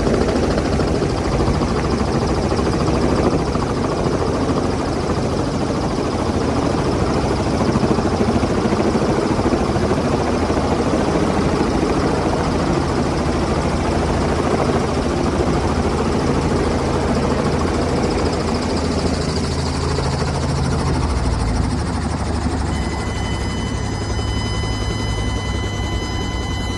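Robinson R44 Raven helicopter's rotor and piston engine running, heard from inside the cabin as it hovers low and settles onto the ramp to land. The low drone changes note about three quarters of the way through, and a steady high-pitched tone joins near the end.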